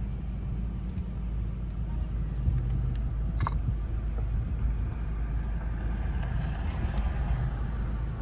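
A steady low rumble, with a few faint ticks and a brief short tone about three and a half seconds in.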